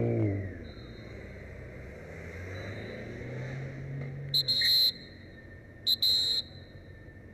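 Two short, loud blasts on a traffic officer's whistle, about a second and a half apart, given while traffic is being halted with a raised hand. Underneath, an engine runs low, and it revs up briefly right at the start.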